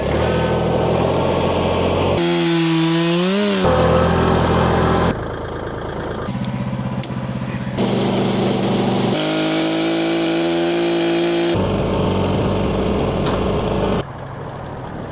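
A string of short cut-together clips of engine-powered machines running, a chainsaw among them, each switching abruptly to the next every one to three seconds. In one clip, a few seconds in, an engine revs up and cuts off.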